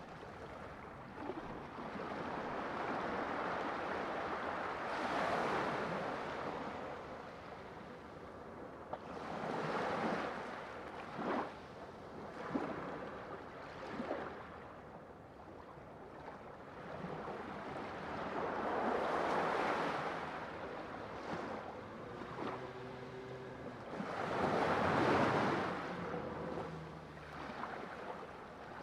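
Sea waves surging and breaking in irregular swells of rushing noise, a few seconds apart, the biggest near the end. A faint low hum sits under the water noise for a few seconds late on.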